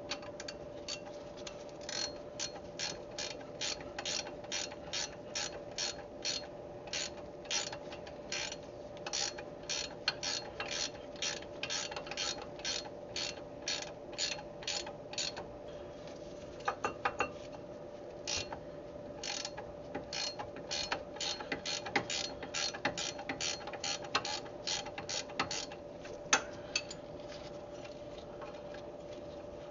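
Hand ratchet wrench clicking in short strokes on the brake caliper hardware, about two strokes a second, turning more unevenly in the second half.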